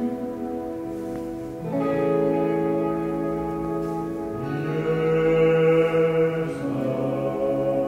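A man singing slow, long held notes over ambient music, moving to a new note about every two seconds.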